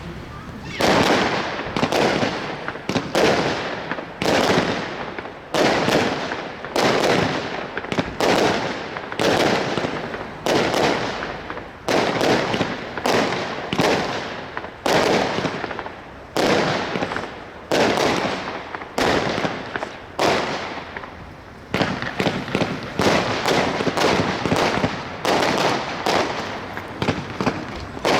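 Consumer firework battery firing shot after shot, each a sharp bang followed by a tail that dies away, at about one shot a second, quickening to about two a second in the last six seconds.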